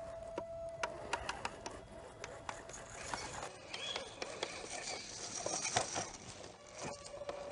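Radio-controlled scale crawler on an Axial chassis driving over loose dirt: a thin steady electric motor and gear whine in the first second and again near the end, over many small clicks and crackles of tyres and soil.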